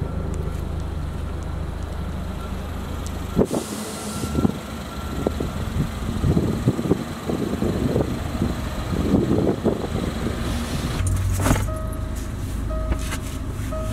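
Range Rover Evoque idling, with scattered knocks and handling noise. About eleven seconds in there is a sharp clunk, and after it a short electronic chime repeats several times.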